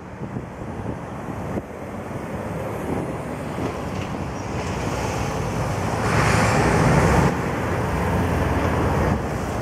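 Road traffic noise over a steady rumble, with a car passing close by and loudest about six to seven seconds in.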